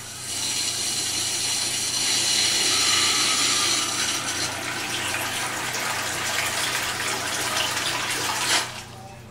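Single-lever basin faucet turned on, its water stream splashing into the washbasin and draining away, then shut off suddenly near the end.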